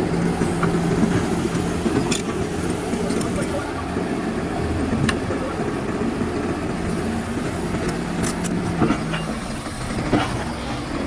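DLC 225 excavator's diesel engine running steadily under hydraulic load, with a few sharp knocks scattered through.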